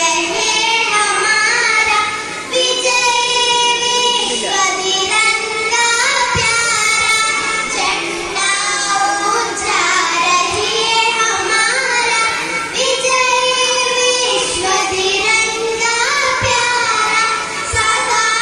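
Three young girls singing a song together into one microphone, their voices held and bending in long sung lines.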